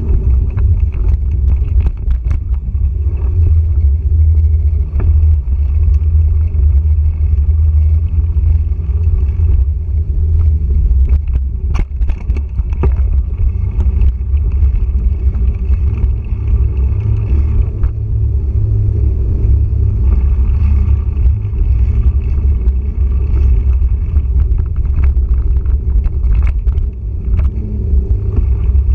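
Steady low rumble of wind and trail vibration on a handlebar-mounted GoPro Hero3+ Black as a mountain bike rolls along dirt singletrack, with scattered clicks and knocks from the bike going over bumps.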